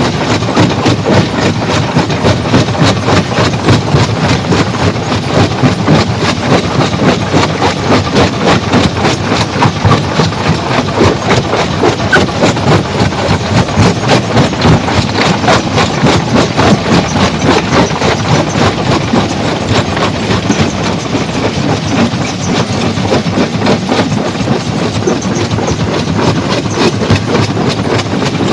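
Stone crushing machine running steadily under load with a fast, even rhythmic clatter of rock and metal.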